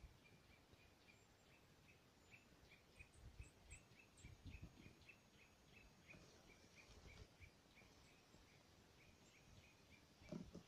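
Near silence: a faint high tick repeating about three times a second, a few faint high thin whistles about three seconds in, and soft rustles, the loudest near the end.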